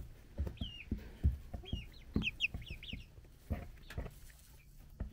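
Young chicks peeping: short, high, falling chirps, with a quick run of several about two seconds in, over soft knocks and rustles of the birds moving and pecking.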